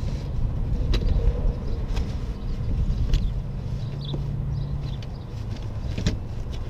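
A folded camp chair and its fabric carrying case being handled and unpacked: rustling with a few sharp clicks and knocks, over a steady low rumble.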